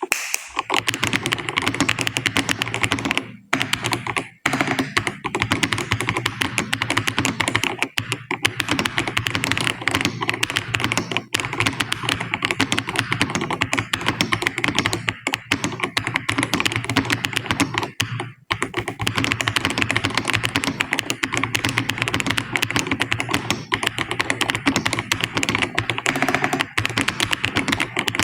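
Computer keyboard being typed on fast and continuously, at about 76 words per minute, a dense stream of key clicks with a few brief pauses.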